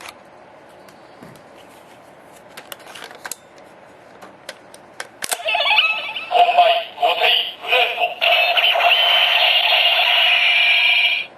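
Tensouder toy morpher playing a card's electronic sound effect through its small speaker: a few light plastic clicks of handling, then about five seconds in a burst of synthesized voice and effects ending in a long held electronic tone that cuts off sharply.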